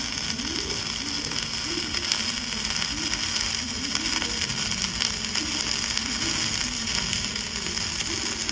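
Dual-shield flux-core wire welding arc running overhead on a root pass, with 75/25 argon/CO2 shielding gas: a steady, unbroken crackling sizzle.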